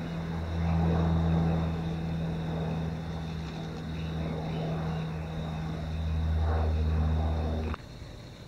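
Propeller-driven airliner flying overhead: a steady low drone that swells about a second in and again near the end, then cuts off suddenly.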